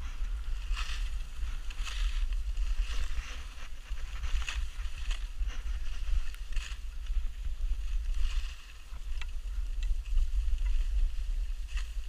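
Skis hissing and scraping on packed snow at each turn, roughly once a second, over steady wind rumble on the microphone from the skier's speed.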